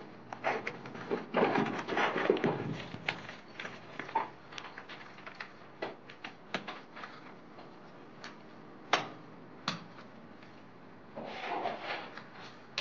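Wet gypsum plaster being pressed and smeared onto a wall by hand, with a steel trowel held against it. It is a dense rubbing and scraping for the first few seconds, then scattered sharp taps and clicks, and rubbing again near the end.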